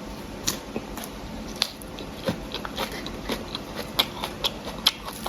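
A person chewing food close to the microphone, with irregular wet, crisp clicks and crunches at uneven intervals.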